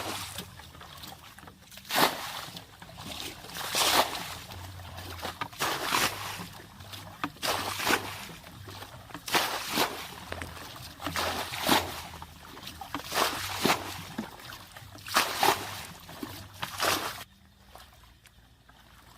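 Water sloshing and splashing in short bursts about every two seconds, which stop shortly before the end.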